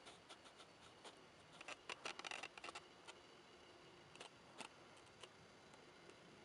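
Faint rustling and small clicks of clothing and gear as a seated hunter shifts position, a cluster of crackles about two seconds in and a few single ticks later, over a near-quiet background.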